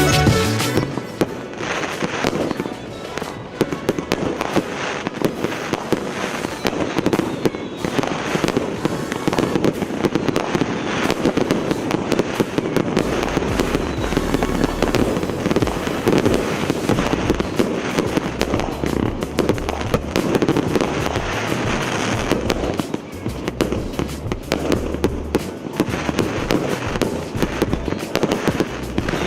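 Consumer fireworks battery (multi-shot cake) firing a rapid, continuous string of shots and crackling bursts, with music playing underneath.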